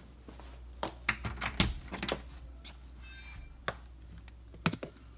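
A string of irregular sharp clicks and light knocks over a steady low hum, with a brief faint high tone about three seconds in.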